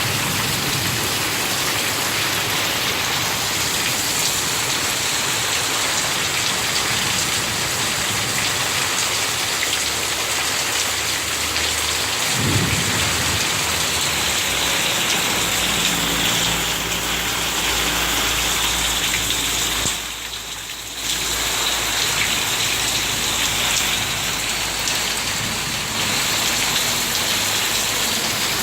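Heavy rain pouring steadily during a thunderstorm. A low rumble joins about halfway through, and the rain sound dips briefly about two-thirds of the way in.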